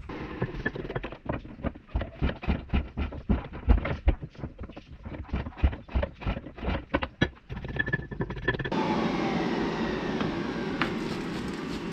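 A fast, uneven run of sharp knocks and clatter of metal being handled at a workbench. After about eight and a half seconds it gives way to a steady rushing noise.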